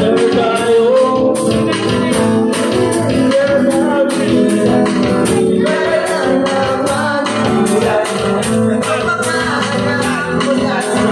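A small live band playing through a PA: a man sings lead over electric guitar, and a hand-struck drum keeps a steady beat.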